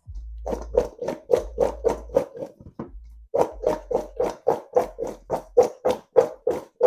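Peeled yam wedges being tossed with oil and seasonings in a mixing bowl. They knock against the bowl in a steady rhythm of about three or four strokes a second, with a brief pause about three seconds in, and the bowl rings a little on each stroke.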